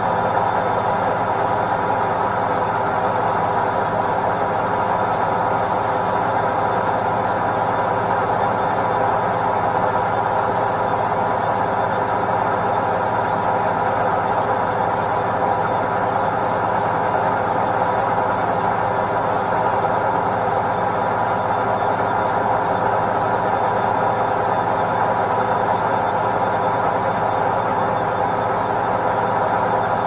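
Indesit IWC71252 front-loading washing machine on its spin cycle, the drum spinning at a constant speed: a loud, unchanging mechanical hum with several steady tones in it.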